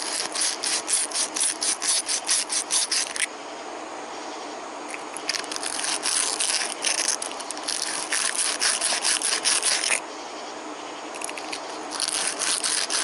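Spark plug threads being scrubbed by hand with a small wire brush: quick back-and-forth strokes in three bursts, with short pauses between.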